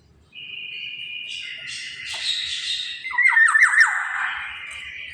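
Black-naped oriole calling: a long, rasping call, then a quick run of about five short falling notes about three seconds in.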